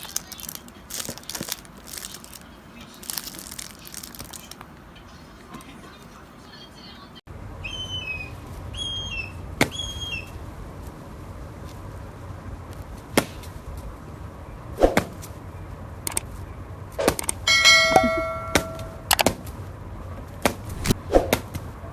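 Scattered taps and rustling, then a few short, quickly falling chirps from a small bird, more taps, and a brief ringing tone with several pitches near the end.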